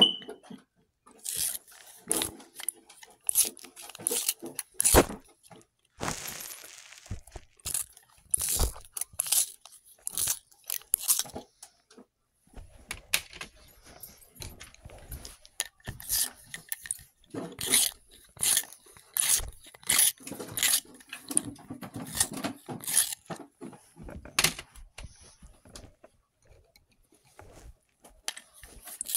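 Pencil sharpeners being handled and used: irregular sharp clicks and crunches, with a few longer scraping stretches in the second half.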